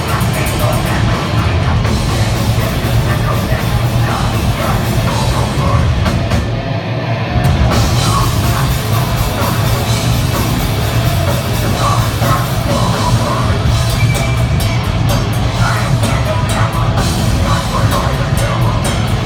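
Heavy metal band playing live at full volume: distorted guitars and a pounding drum kit in a dense, unbroken wall of sound. The band stops briefly about a third of the way in, then comes straight back.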